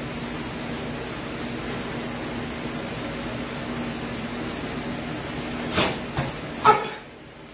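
Steady hiss with a faint low hum, then near the end three sharp sounds from a karate kata, the snaps of the gi and the feet striking and landing on foam mats as the karateka turns quickly. The last of these is the loudest.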